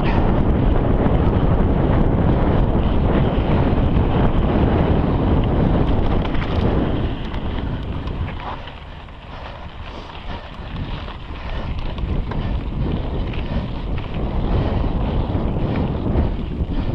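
Wind rushing over the camera microphone and mountain bike tyres rumbling over dirt singletrack at race speed. It eases about seven seconds in and builds back up near the end.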